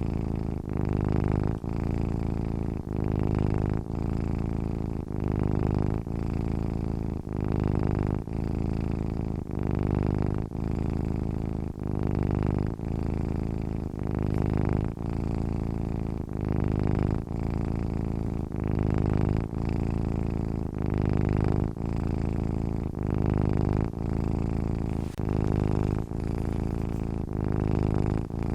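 Domestic cat purring steadily and close up, in a regular rise and fall about once a second as it breathes in and out.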